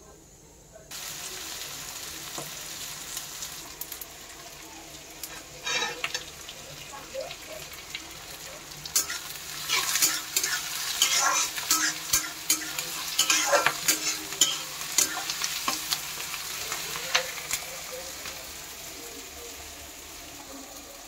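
Oil sizzling in a metal kadai, first with cumin seeds and then with chopped onion, green chillies and garlic frying. The sizzle starts suddenly about a second in. Through the middle come louder strokes of a spatula stirring and scraping the pan.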